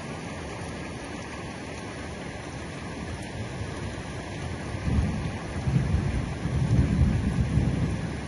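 Steady heavy rain, with a low rumble of thunder building a little past halfway and loudest near the end.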